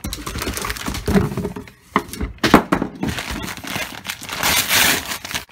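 Paper mailer bag crinkling and rustling as it is handled and torn open, with sharp crackles about two seconds in and a louder, longer rustle near the end.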